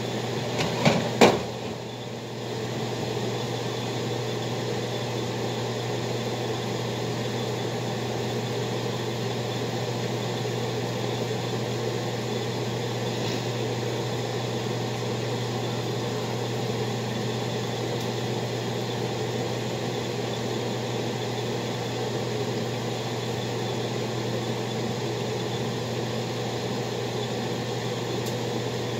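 A few sharp clicks of kitchen tongs in the first second or so, then a steady low hum with an even hiss.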